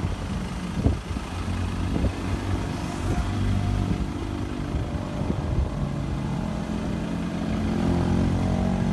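A road vehicle's engine running, its hum steady at first and then rising in pitch over the last few seconds as it speeds up or draws closer. There are a couple of short low thumps in the first two seconds.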